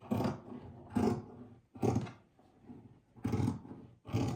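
Scissors cutting through two layers of fabric in about five short snips roughly a second apart.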